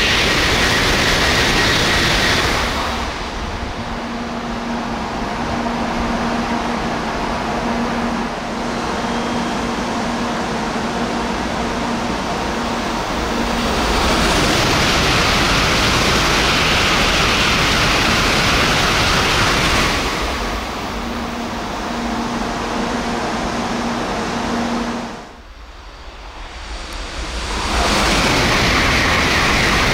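N700A Shinkansen trains passing at high speed, around 270–280 km/h, one after another: a loud rushing noise of a passing train at the start, a second pass about fourteen seconds in lasting some six seconds, and a third beginning near the end. Between passes there is a quieter rushing background with a faint steady hum.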